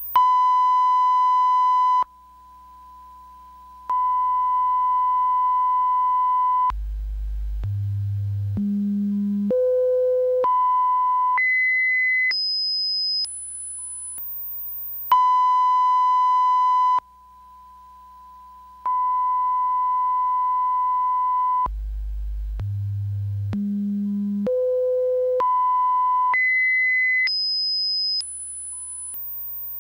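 Audio line-up test tones: a steady mid-pitched reference tone that drops much quieter for a couple of seconds, then single pure tones stepping up in pitch about once a second from a deep hum to a very high whistle. The whole sequence plays twice.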